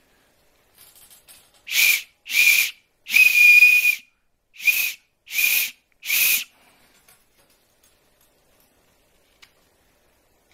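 Hand-carved deer antler survival whistle blown six times in short blasts, the third held longest, each a steady high-pitched tone with plenty of breathy hiss.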